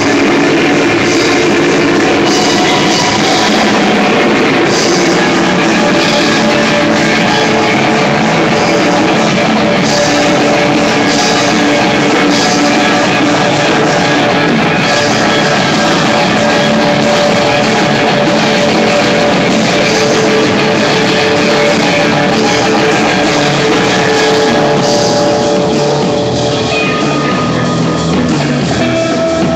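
A live rock band playing loudly, with distorted electric guitars and a drum kit, heard through a phone's microphone. The high end thins out near the end.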